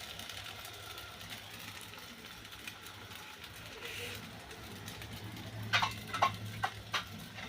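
Pancakes frying in oil in a pan with a faint sizzle over a steady low hum. Near the end a cooking utensil knocks sharply against the pan four times in quick succession.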